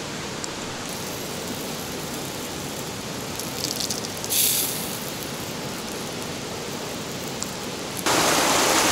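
Steady rushing of a mountain river behind a campfire, with a brief hiss about four seconds in. At about eight seconds a much louder rushing of the stream cuts in.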